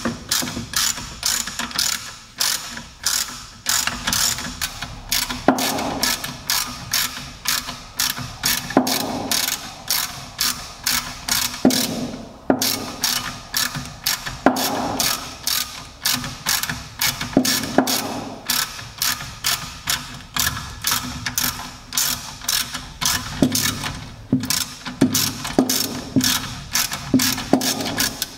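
Hand ratchet with an E14 Torx socket turning out the bolts that hold a BMW E39's rear wheel bearing. The pawl clicks fast and regularly, a few clicks a second, with short pauses between runs of strokes.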